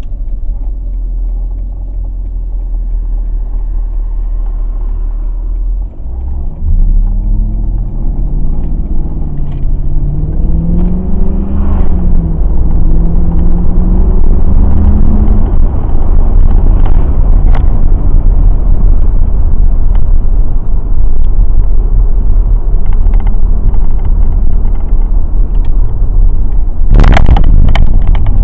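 Mercedes-AMG 6.2-litre V8 running, its pitch rising and falling between about seven and fifteen seconds in, then holding steady and louder. The engine has logged misfires on cylinders 1 and 7, put down to a failing fuel pump. A short loud knock comes near the end.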